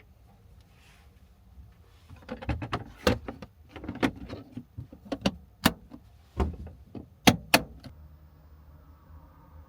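A run of irregular clicks and knocks, some sharp and loud, like objects or fittings being handled inside a small van. A low steady hum follows near the end.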